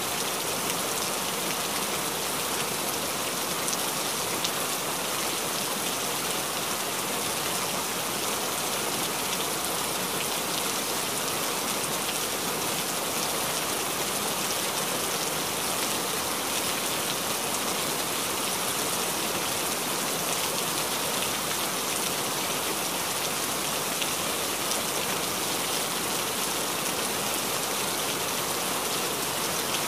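Steady, even rain-like hiss with no breaks or changes.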